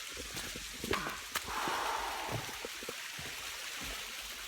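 Steady rushing hiss of a waterfall, with two sharp clicks about a second in and a brief louder swell of noise just after.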